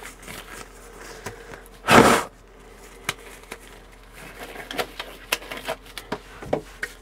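Black nitrile gloves being pulled on by hand: rubbery rustling with one louder short burst about two seconds in, then a series of quick small snaps and clicks.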